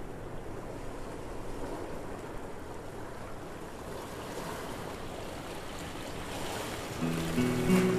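Small waves breaking and washing over a pebble shore, a steady rush of water. Music with a plucked guitar comes in about a second before the end.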